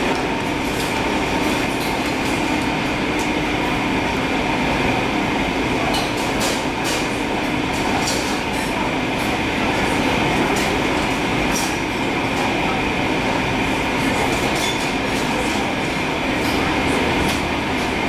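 Cafeteria room noise: a steady machinery hum with a few held tones, and occasional light clicks and clinks, most of them around six to seven seconds in and near twelve seconds in.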